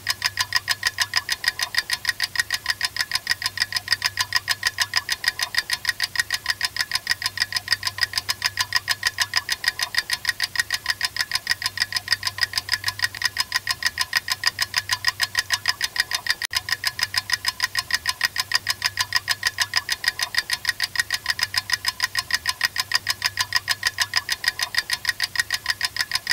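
Rapid, perfectly even ticking, about four sharp ticks a second, each with the same thin metallic ring, over a faint low hum. It continues unchanged throughout and gives way to music at the end.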